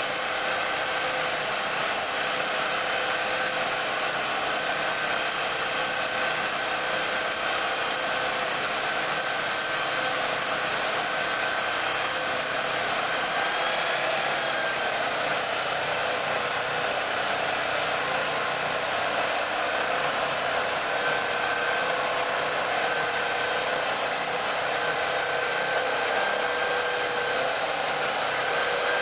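Homemade sanding machine driven by an electric hand drill, running steadily on a wooden board: a constant motor whine over an even sanding hiss.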